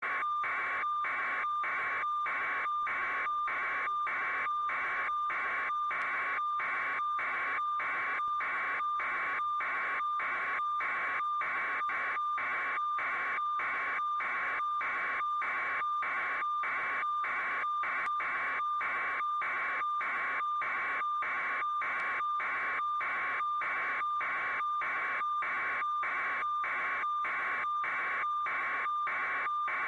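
Electronic static: a hiss with a steady high tone through it, pulsing evenly a little under twice a second without pause.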